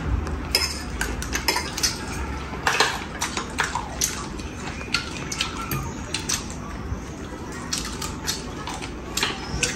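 Knives and forks clinking and scraping against plates as people cut and eat chicken: many short, irregular clicks throughout.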